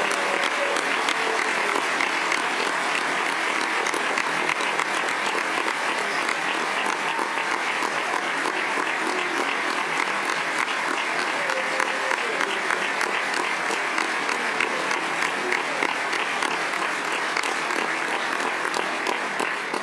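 Large crowd applauding steadily in a standing ovation, with voices mixed in.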